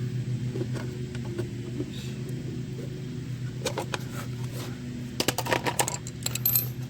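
Scattered sharp clicks and rattles, with a quick cluster of them about five to six seconds in, over a steady low hum.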